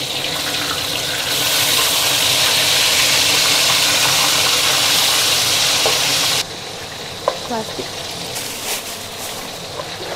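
Water running hard from a kitchen tap, then shut off suddenly about six and a half seconds in. A quieter steady sizzle with a few small clicks continues underneath.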